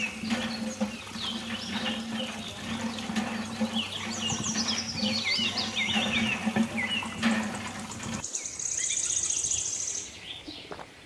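Small birds chirping repeatedly over a steady low hum and background noise. About eight seconds in, the sound changes abruptly to a fast, high, even trill like an insect, lasting about two seconds.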